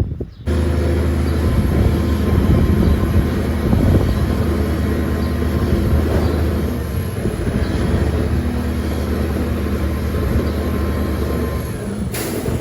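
Semi truck's diesel engine running steadily under load while its hoist raises the dump trailer to tip out a load of agricultural lime, with a thin high whine above the engine. A sharp click comes near the end.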